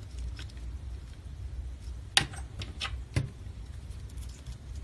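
Small metal clicks and clinks of a stainless steel ear wire being fitted and lined up in the back of a metal pinback button, with a few sharp ticks, the loudest about two and three seconds in.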